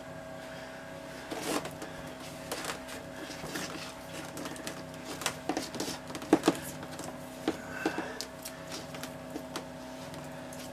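Coil of clear vinyl tubing being uncoiled and handled, with scattered light knocks and rustles of plastic, over a steady low hum.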